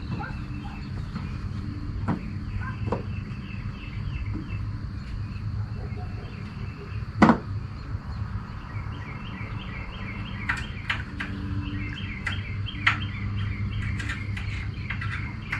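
Birds chirping and trilling outdoors over a steady low rumble. A few light clicks, one louder knock about halfway through, and more clicks in the second half come from the hydraulic work on the vehicle.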